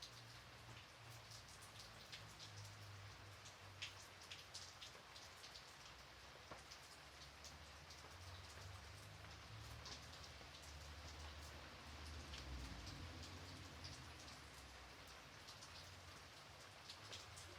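Gentle, quiet rain: a soft steady hiss with individual drops ticking here and there, over a faint low rumble.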